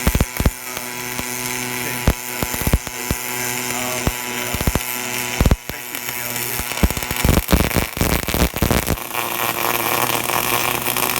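Automatic welding arc running along a floor seam: continuous crackling hiss broken by many irregular sharp pops, over a steady machine hum.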